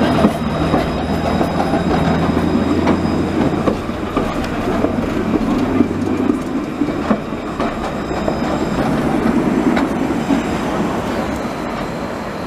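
Low-floor electric tram passing close by at low speed: a steady rumble of steel wheels on street rails with a low motor hum that stops about halfway through, and a few sharp clicks.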